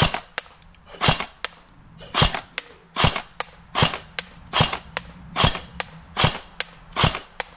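Electric-blowback airsoft FAL rifle (an AEG) firing single shots at a steady pace of about one a second, each a sharp crack. Fainter clicks fall between the shots.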